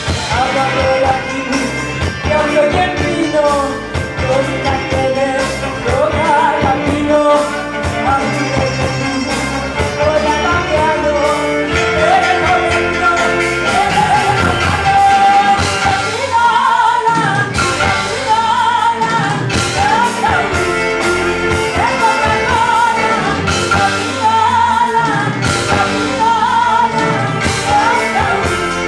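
Live band music with a woman singing the lead into a microphone, a violin among the instruments and a steady beat.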